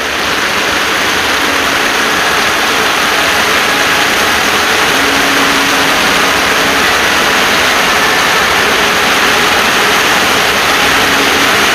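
Heavy rain pouring down in a steady, dense rush.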